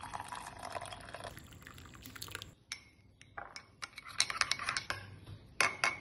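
Milk pouring into a ceramic mug for about two and a half seconds, then a metal spoon stirring in the mug, clinking against its side several times.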